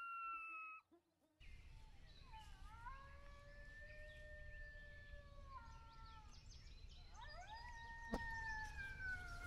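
Two long coyote whine howls played on a predator call, the MFK 'Boone Lone Whine Howls' sound: the first dips, then holds a level pitch for about three seconds, and the second rises sharply and slowly falls away. Wind noise runs on the microphone under them. Before them, the end of a coyote pup's howl cuts off just under a second in.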